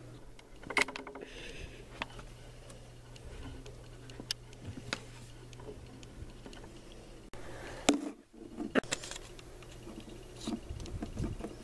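Handling noise from a picture frame being picked up and held in the hands: scattered light clicks and taps over a steady low hum.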